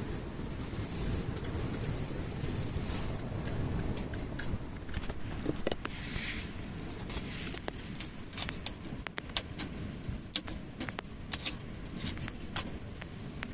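Wind buffeting the microphone in a steady low rumble, with scattered sharp clicks and light metallic clinks through the second half.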